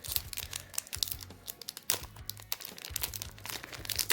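Foil booster-pack wrapper crinkling and tearing as a Pokémon card pack is opened, in a run of irregular crackles with a sharper crackle near the end.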